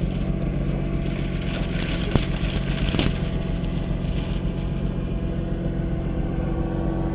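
Jeep Wagoneer engine running steadily, with two sharp knocks about a second apart partway through.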